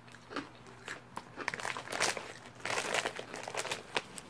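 Plastic potato chip bag crinkling and rustling as it is handled, in irregular bursts that are busiest in the middle.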